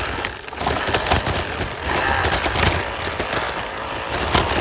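A scooter riding over rough, uneven ground: a steady low rumble and noise with many short clicks and knocks as the frame rattles over bumps.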